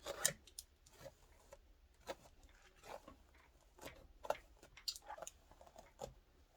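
A comb being drawn through the straight synthetic hair of a lace-front wig: faint, irregular short scratchy strokes.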